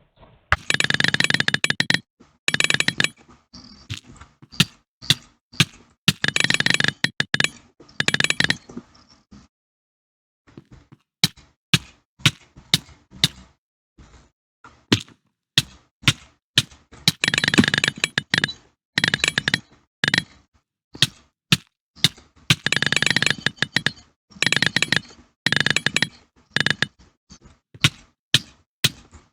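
A series of sharp clicks, some single and some in quick runs, between repeated bursts of dense, crackling noise about a second or two long.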